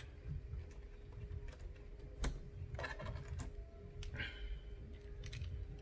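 Small precision screwdriver backing screws out of a plastic laptop bottom case: scattered light clicks and taps, the sharpest a little after two seconds in, with a brief rustle around four seconds. A faint steady hum sits underneath.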